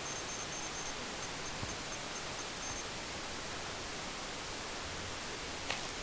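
Steady hiss of background recording noise with no speech. A faint, high-pitched beeping pulses through the first three seconds, first quickly and then more sparsely, and a small click comes near the end.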